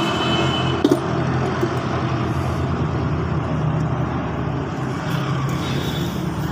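Steady low engine drone with low humming tones, and a single sharp click about a second in.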